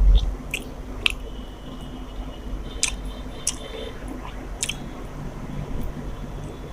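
A person eating rice and chicken curry, with wet squishing chewing sounds and a few sharp, brief clicks.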